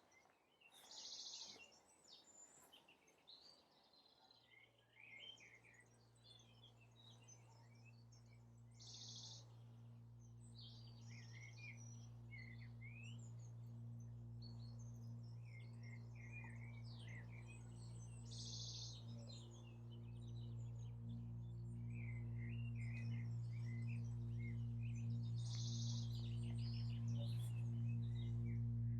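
Small birds chirping and singing, with a buzzy trill returning about every eight seconds. From about four seconds in, a low, steady musical drone fades in under the birdsong and grows steadily louder until it dominates.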